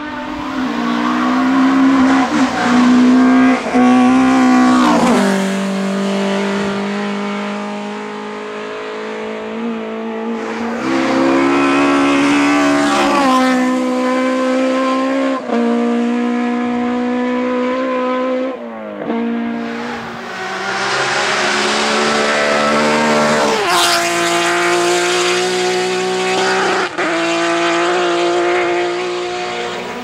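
Hillclimb race car engines at full throttle, the revs climbing and then dropping sharply at each gear change, again and again as the cars come up the course.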